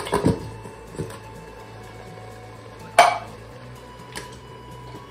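Metal clanks as an open can of condensed cream of mushroom soup is knocked against a stainless steel Instant Pot insert to empty it, with one loud ringing clank about three seconds in and a few lighter taps around it, over a low steady hum.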